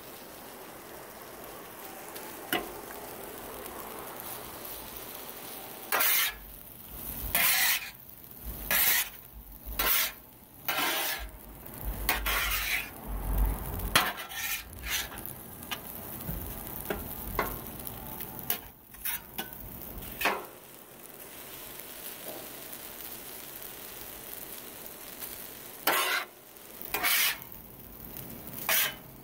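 Rice sizzling on a Blackstone flat-top griddle, with a metal spatula scraping and chopping across the steel top in a run of sharp strokes from about six seconds in to about twenty, and again near the end.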